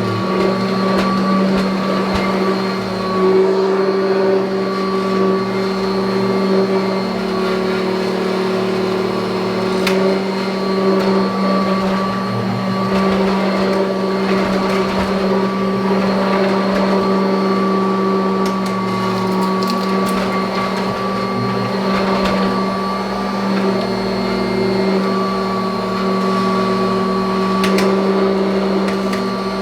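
1984 Kirby Heritage vacuum cleaner running steadily, a constant motor hum with a higher whine above it that shifts slightly as it is worked. A few short clicks come through.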